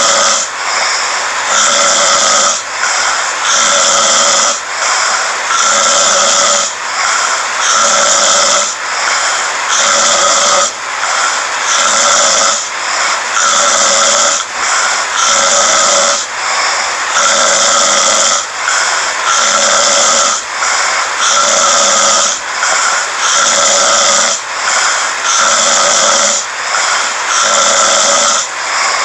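A person snoring in an even, regular rhythm: rasping, hissing breaths repeat every second or two, with short dips between them.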